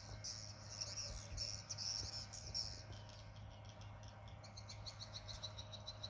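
Faint chorus of high chirping calls from the small creatures of a lotus pond. The chirps come in short bursts at first, then from about halfway become a fast, even trill, over a steady low hum.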